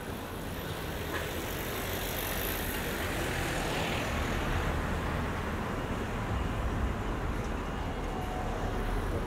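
Road traffic passing: a steady rush of tyre and engine noise, swelling as a vehicle goes by a few seconds in.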